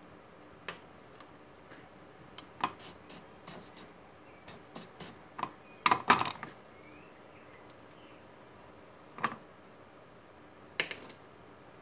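Scattered small clicks and taps of a soldering iron, wire and tools being handled on a workbench during soldering on a circuit board, the loudest cluster about six seconds in.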